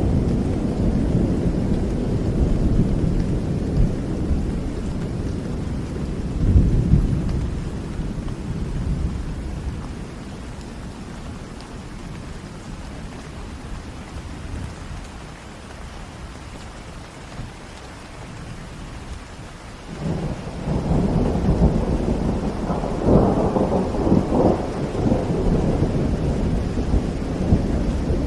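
Steady rain with rolling thunder: a deep rumble dies away over the first ten seconds, then a fresh peal breaks in suddenly about twenty seconds in and crackles loudest a few seconds later.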